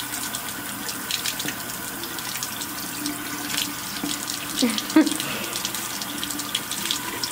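Water running steadily from a sink tap, with one short voice sound about five seconds in.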